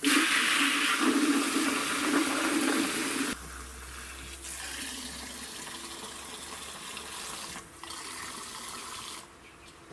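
Water from a garden hose's pistol-grip spray nozzle splashing into plastic chicken waterers as they fill. Loud at first, it drops to a quieter stream about a third of the way in, breaks off briefly, and stops shortly before the end.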